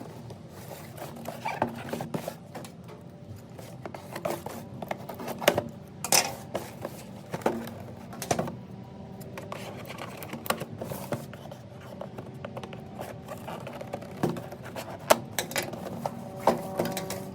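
Irregular clicks, taps and short scrapes of a toy's box and plastic packaging being handled and opened.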